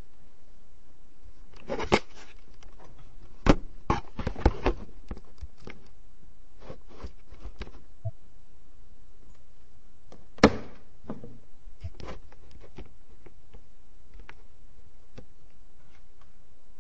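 A few scattered knocks and clicks over a steady low hiss: a cluster of sharp ones about two to five seconds in, a single sharp knock about ten seconds in, and fainter taps after it.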